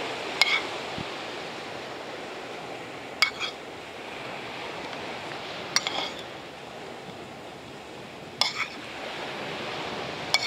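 Metal serving spoon clinking against the rim of a frying pan and the camp bowls as chicken is scooped out: five sharp clinks about two and a half seconds apart, over a steady wash of surf and wind.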